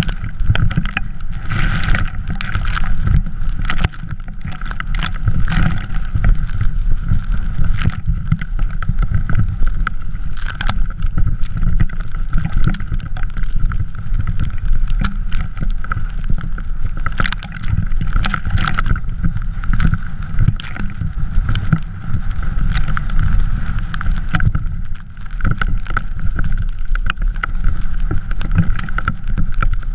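Drift trike riding over snow: a loud, continuous rumble and rattle from the wheels, with scattered sharp knocks and wind buffeting the camera microphone.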